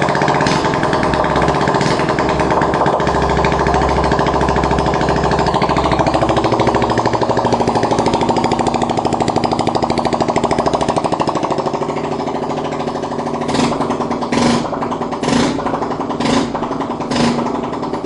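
Yamaha WR125R's single-cylinder four-stroke engine running with its exhaust removed, the bare exhaust port loud and rattly at idle. Near the end the throttle is blipped about five times in quick, even succession.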